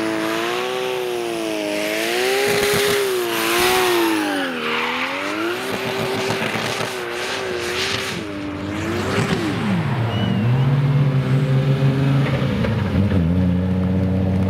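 Drift car engine revving up and down as the car slides, with tyres squealing in the first few seconds. About nine seconds in the revs drop and the engine settles to a lower, steady pitch.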